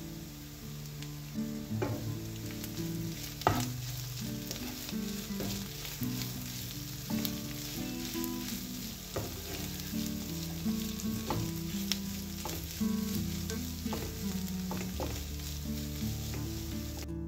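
Minced meat and sliced onions sizzling in a frying pan while a wooden spatula stirs them, scraping and tapping against the pan over and over. The sharpest knock comes about three and a half seconds in.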